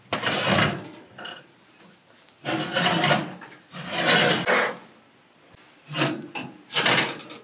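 Baking sheets scraping and sliding across a wire oven rack as the pans of scones are pulled out of the oven, in about five short rasping strokes.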